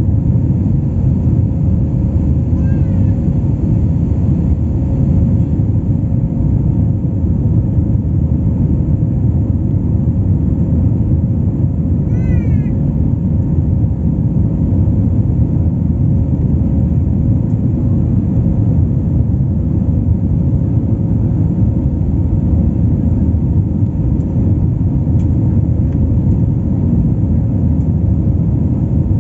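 Steady cabin noise of an Airbus A320 airliner in flight: a deep, even rumble of engines and airflow with a faint steady hum. Two brief wavering high-pitched sounds come through it, about three seconds in and again about twelve seconds in.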